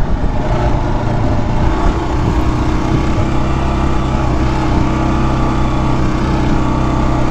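Adventure motorcycle engine running steadily under load as it climbs a hill, with a steady rush of wind noise over it.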